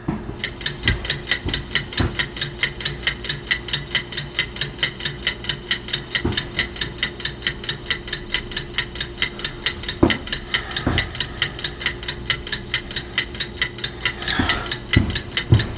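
A quick, even, clock-like ticking, about four ticks a second, over a steady low hum, with a few low thuds scattered through it.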